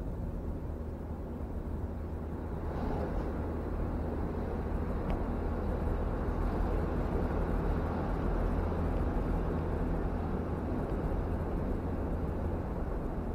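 Steady road and engine noise of a car, heard from inside its cabin. It swells about three seconds in as the car drives into a tunnel and stays louder there, where oncoming traffic passes.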